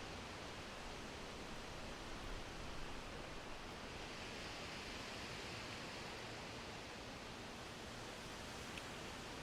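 Steady rain falling, an even hiss with a slight low swell about two to three seconds in.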